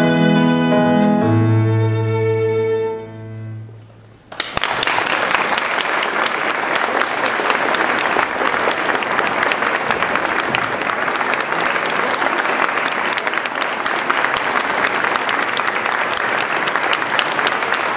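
A violin and a Yamaha CP stage piano play the closing notes of a piece, the last chord held and fading away. About four seconds in, an audience breaks into steady applause.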